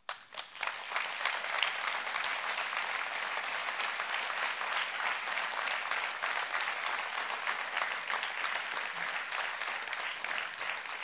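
Large audience applauding, many hands clapping at once; it starts suddenly and holds steady.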